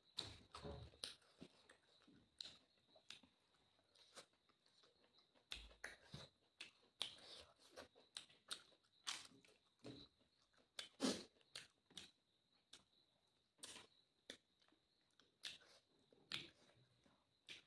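Close-miked eating by hand: chewing and wet mouth clicks, with fingers picking food off a plate, in short, irregular sounds. The loudest comes about eleven seconds in. A faint steady high whine runs underneath.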